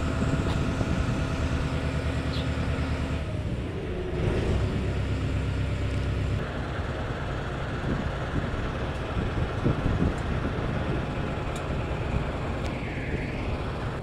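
Motorboat engine running with a steady hum that changes note about three seconds in and gives way to a rougher, even rumble after about six seconds.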